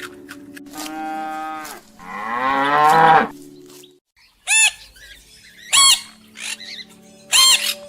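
Cow mooing: first a steady call, then a louder one that rises and falls in pitch. After a break, another animal gives short, high squawks, one every second or so.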